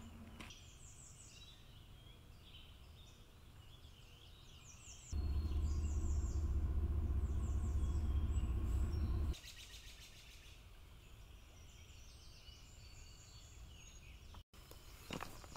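Songbirds calling in series of quick falling chirps over a faint outdoor background. About five seconds in, a loud low rumble starts abruptly, drowns them for about four seconds, and cuts off just as suddenly.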